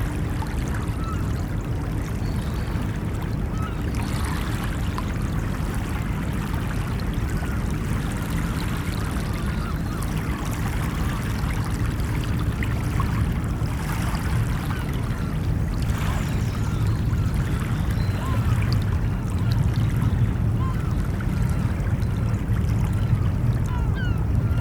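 Steady wash of waves and water with a deep rumble that swells slightly toward the end, with many short bird calls scattered over it.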